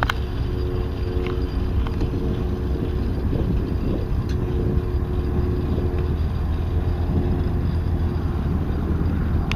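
Aircraft tow tug's motor running steadily with a low hum, with a sharp metallic click right at the start.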